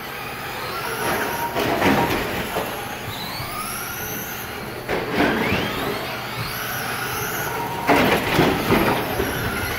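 Several electric Traxxas Slash RC short-course trucks racing: their motors whine, rising and falling in pitch as they speed up and slow down. Sharp clattering knocks break in a few times, the loudest a cluster about eight seconds in, as the trucks collide with each other and the track boards.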